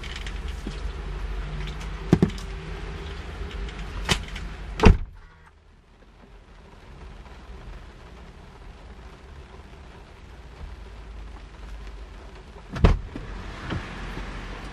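Inside a parked car in the rain: a steady low hum from the running car, with a few sharp clicks, cuts off abruptly after a loud click about five seconds in. A softer even noise of rain on the car follows, broken by another sharp click and a smaller one near the end.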